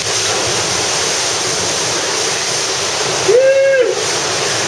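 Ocean swell surging into a rock sea cave and blowhole: a loud, steady rush of churning water and spray. About three and a half seconds in, a person lets out a short whoop.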